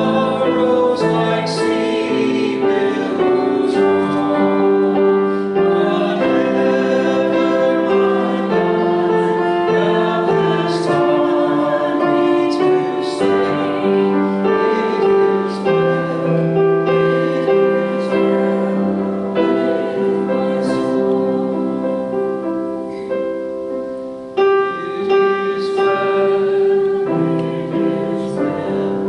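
A congregation singing a hymn together to piano accompaniment, in slow, held notes, with a brief pause about 24 seconds in before the next phrase begins.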